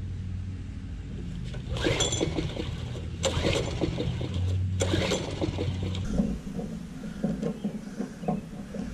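The small gas engine of a Craftsman tiller being pull-started on choke: three hard pulls on the recoil starter cord about a second and a half apart, with the engine turning over and sputtering but not settling into a steady run.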